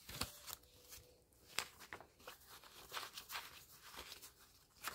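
Paper banknotes rustling and crinkling in short, irregular bursts as a stack of bills is pulled from a budget-binder pocket and flipped through by hand.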